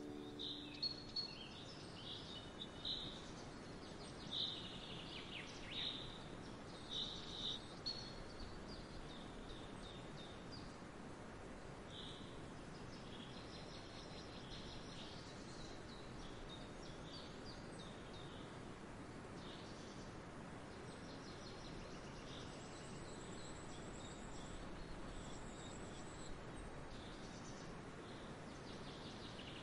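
Wild birds chirping and singing over a faint, steady background hiss. The calls come thick and fast for the first several seconds, then grow sparser and fainter.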